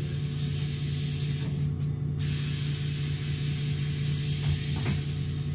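MAN Lion's City city bus's diesel engine idling steadily while the bus stands, with two hisses of compressed air from its pneumatic system, about half a second in and again about four seconds in.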